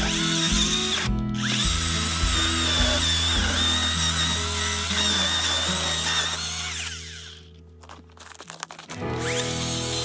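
Electric chainsaw running and cutting into a log, with a steady high whine. It stops briefly just after a second in, then cuts out for about two seconds near the end before starting again. Background music plays under it.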